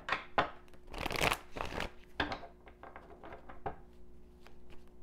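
Tarot deck being shuffled by hand: a dense flurry of card sounds about a second in, then lighter, scattered taps and slides of the cards.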